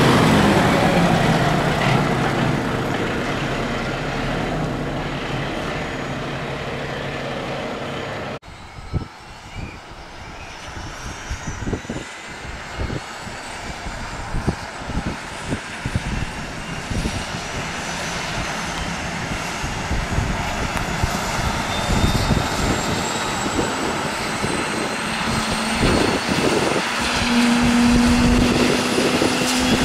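A fire engine's diesel engine pulls away and fades. About eight seconds in it gives way to a twin-turbine Airbus AS365 Dauphin air ambulance helicopter running on the ground with its rotors turning, its turbine whine slowly rising in pitch over irregular rotor thumps and rushes of air as it winds up for take-off.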